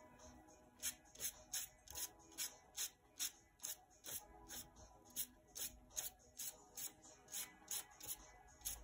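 Ink brush flicking and rubbing across paper while painting pine needles: a quick series of short, dry swishes, about two or three a second at uneven spacing, over soft background music.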